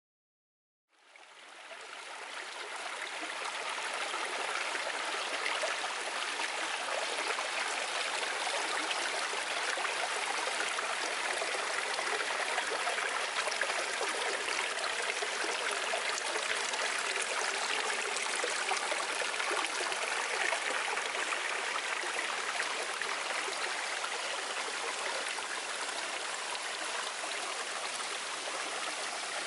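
Steady rush of flowing river water, fading in about a second in and holding even after that.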